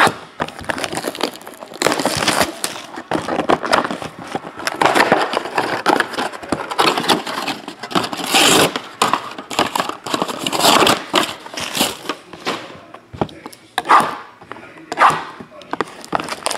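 Plastic shrink-wrap crinkling and crackling as sealed trading-card boxes are unwrapped and handled, with cardboard boxes knocking on the table a couple of times near the end.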